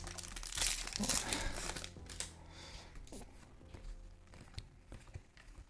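Foil booster pack wrapper being torn and crinkled, with the loudest rustling in the first two seconds or so, then fainter clicks and rustles of handling.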